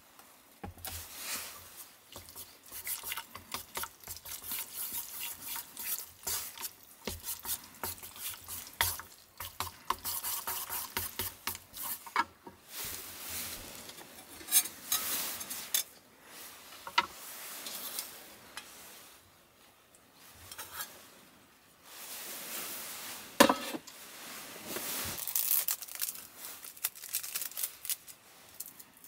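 Chopsticks stirring and tossing spaghetti in a creamy mentaiko sauce in a metal mess tin: wet squelching with chopsticks clicking and scraping against the tin, and one sharper knock about two-thirds of the way through.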